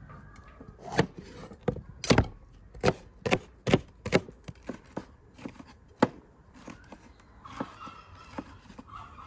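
Broad kitchen knife chopping bell peppers on a wooden cutting board: a run of sharp knocks of the blade striking the board, about two a second, growing fainter after about six seconds.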